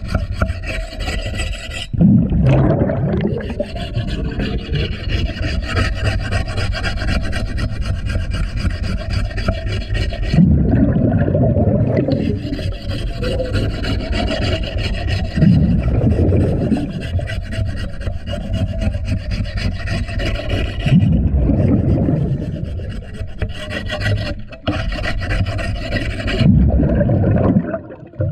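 Underwater rasping as a diver scrapes fouling off a boat's propeller and running gear with a hand scraper, heard through the water. Every few seconds the diver's scuba exhalation bubbles break in with a louder low rumble.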